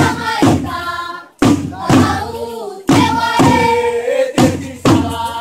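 Group singing of a Maku-maku dance song with hand drums struck in a steady double beat, two strokes about half a second apart repeating roughly every second and a half.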